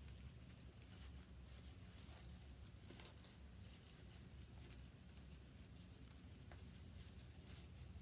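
Near silence: faint scattered clicks and rustles of ribbon being handled and shaped into a bow.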